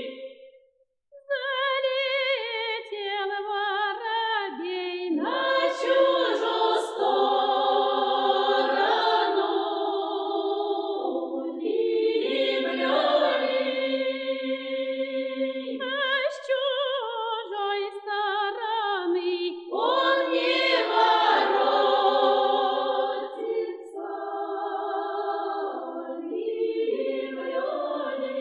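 Russian folk podblyudnaya (divination) song, a field recording of a small group of village singers singing unaccompanied in several voices. Long held notes with phrase breaks, and a short pause about a second in.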